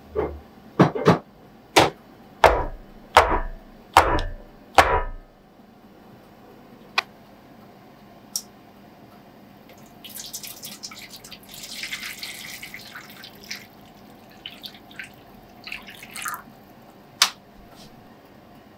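About eight sharp knocks with dull thuds over the first five seconds. Then hot water poured from a steel saucepan into a metal baking tray for a water bath, splashing for a few seconds, followed by a few light clicks.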